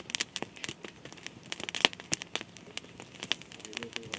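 Irregular crackling: sharp snaps several times a second at uneven intervals, one louder snap about halfway through.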